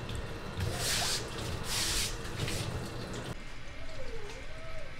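Water from a kitchen sink's pull-down spray hose rinsing a knife on a plastic cutting board, hissing in two short rushes about a second apart. It drops away abruptly a little past halfway.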